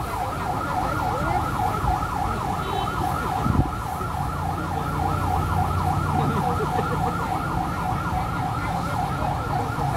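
Fire truck siren sounding a fast yelp, its pitch sweeping up and down about four times a second, over a steady low engine hum.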